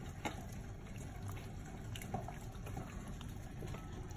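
Cooked lasagna noodles, slick with olive oil, being mixed by hand in a glass bowl: a faint slippery rustle of pasta with a few soft clicks.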